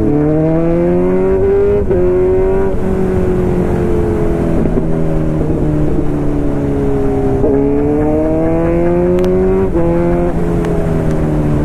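Kawasaki Z900's inline-four engine under way, rising in pitch as it accelerates, dropping at about two seconds, slowly easing down, then rising again and dropping near ten seconds, like gear changes.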